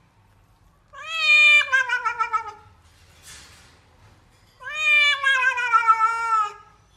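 Wet cat in a grooming bag meowing twice while being bathed: two long, drawn-out meows of about two seconds each, each falling in pitch, with a short faint hiss between them.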